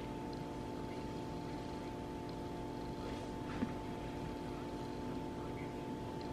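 A quiet, steady hum of several fixed tones, as of a motor or appliance running, with one small tap about three and a half seconds in.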